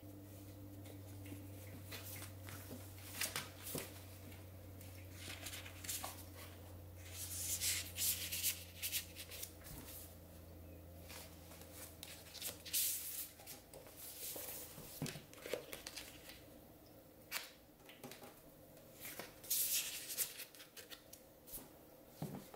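Paper and plastic rustling and crinkling as a sticker sheet and a planner's cover are handled and the sheet is slid into a front-cover pocket, in short bursts. A low steady hum runs underneath and stops about halfway through.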